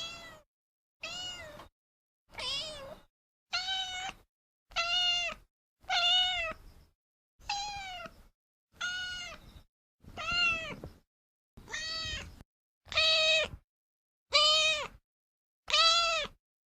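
Domestic cat meowing over and over, a steady series of separate meows about one every second and a quarter, each rising then falling in pitch.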